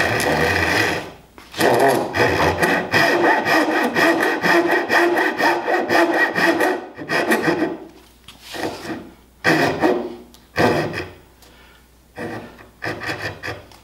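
Japanese pull saw cutting a tenon shoulder in dense wenge. A quick, near-continuous run of rasping strokes for the first seven seconds or so, then slower, separate strokes about a second apart.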